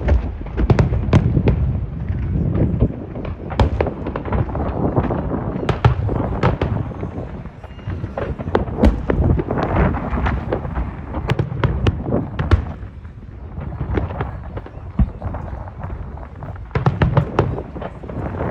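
Fireworks going off in a continuous barrage: many sharp cracks and pops layered over a steady low rumble of explosions, with clusters of crackles around the middle and near the end.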